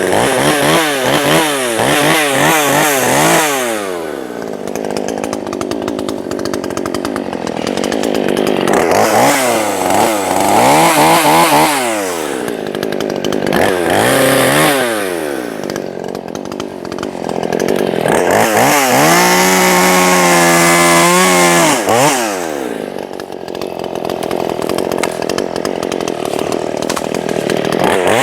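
Small Craftsman two-stroke chainsaw running. Its engine is revved up and let fall back several times, held at high revs for a few seconds about two-thirds of the way in.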